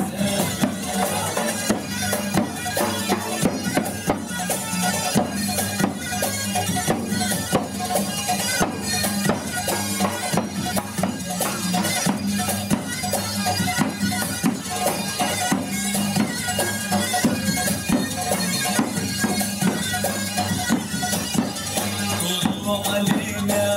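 Zorna, the double-reed shawm of Algerian folk music, playing a nasal, bagpipe-like melody over a steady drone, with fast, even drum beats throughout.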